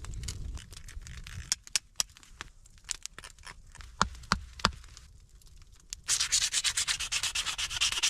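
Hand sanding: fast, even abrasive rubbing strokes that start about six seconds in and are the loudest part, after a few scattered sharp knocks and clicks.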